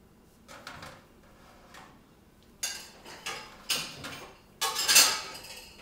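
Dishes and cutlery knocking and clattering as they are taken out of a dishwasher: a few light knocks, then a quicker run of louder clatters, the loudest near the end.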